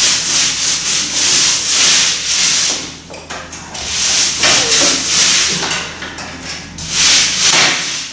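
Paint roller rolled back and forth over a wall, spreading white paint: a rasping hiss with each stroke, about two strokes a second, broken by two short pauses.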